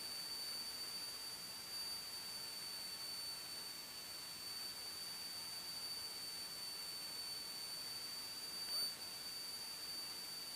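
Quiet steady high-pitched electrical whine over faint hiss in the cockpit intercom audio, with a brief faint rising sound about nine seconds in.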